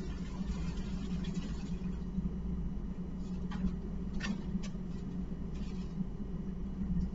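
Steady low room hum, with a few faint rustles and clicks from across the room about halfway through as paper towels are pulled from a wall dispenser.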